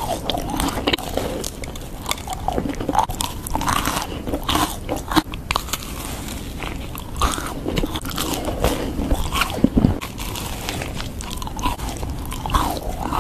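Close-miked bites into French macarons, the crisp meringue shells crunching and crackling, with chewing between the bites.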